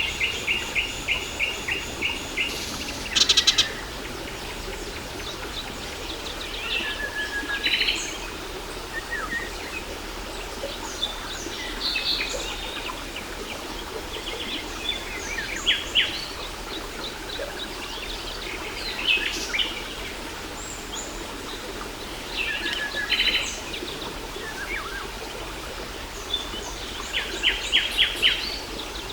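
Several birds singing and calling over the steady rush of a waterfall: a quick run of repeated notes at the start, scattered chirps and whistles throughout, and another fast run of notes near the end.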